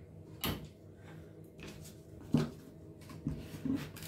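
Plastic kitchen containers being picked up and set down on a wooden table as it is cleared: a handful of short knocks and clatters, the loudest about two and a half seconds in.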